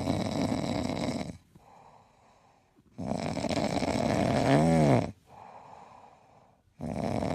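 Snoring: three loud snores about three and a half seconds apart, with quieter breaths between them. A brief squeaky whistle rises and falls near the end of the second snore.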